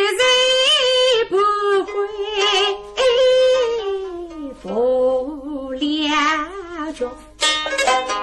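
A woman singing a line of Suzhou tanci in long, wavering held notes, accompanied by pipa and sanxian. The plucked strings take over with a quick run near the end.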